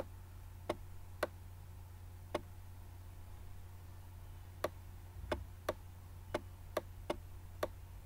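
Sharp, irregular clicks, about a dozen, from the pointing device used to handwrite on screen, with a pause of about two seconds partway through. A faint low hum runs underneath.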